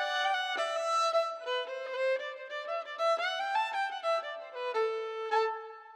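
Background music led by a fiddle playing a quick melody of short notes, ending on a held note that fades out near the end.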